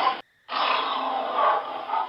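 Tyrannosaurus rex roar sound effect: a deep, rough growl cuts off abruptly near the start, then a second, wavering growl follows after a short gap.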